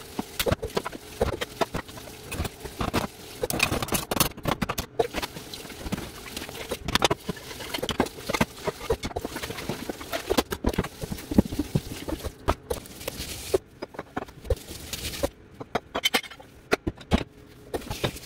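Dishes, cups and utensils clattering and knocking irregularly as they are hand-washed in a stainless steel kitchen sink, with water running from the tap.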